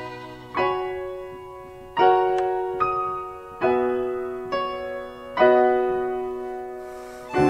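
Piano playing a solo passage of a hymn arrangement: chords struck about once a second or so, each ringing and fading before the next.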